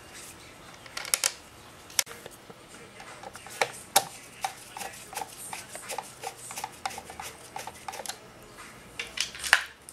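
Phillips screwdriver driving the screws that hold a motorcycle tail light lens, with sharp clicks of the driver and screws against the plastic lens. In the middle comes a run of small even ticks, about three or four a second, as a screw is turned, and near the end a few louder clicks.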